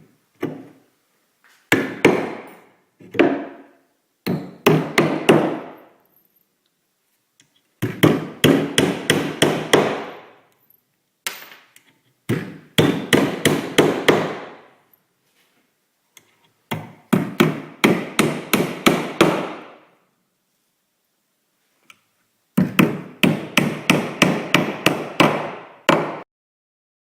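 Hammer blows on a timber noggin, in rapid runs of about four or five strikes a second separated by short pauses: the noggin with its metal connector being knocked into place.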